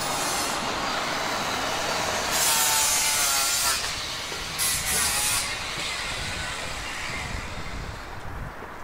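Town-centre street traffic: a steady noise of vehicles, with two louder noisy passes about two and a half and four and a half seconds in, then quieter.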